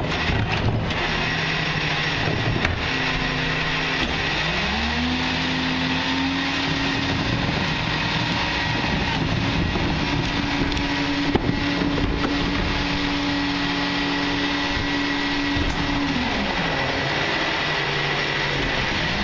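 Garbage truck's diesel engine idling, then revving up about four seconds in and holding high revs while the Wayne Royal GT rear loader's hydraulic packer runs its packing cycle. It drops back to idle near the end. A few clanks at the start as the emptied cart is set down.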